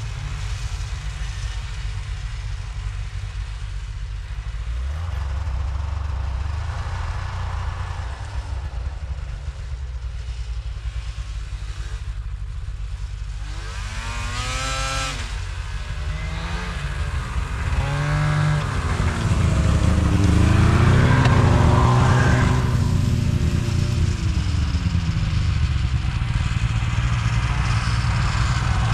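Snowmobile engines running and revving, with the pitch rising and falling in short sweeps about halfway through. One sled gets louder as it approaches near the end, over a steady low rumble.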